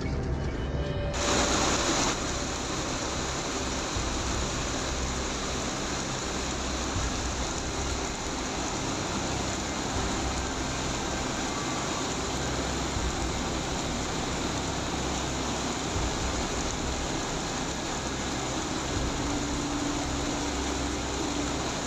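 Heavy hail pelting a parked car and the ground around it, a dense steady patter and hiss that starts about a second in.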